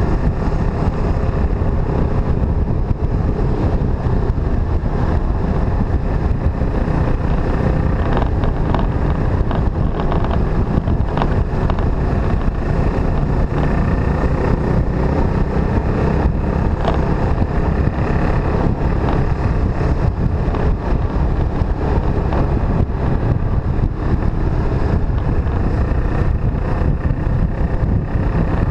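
Motorcycle riding at a steady speed: wind rushing over the microphone, with the engine running underneath.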